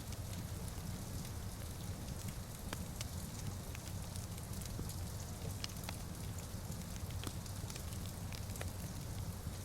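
Wood fire crackling in a fireplace: irregular sharp pops and snaps over a steady low rumble of flame, with a soft, even hiss of rain.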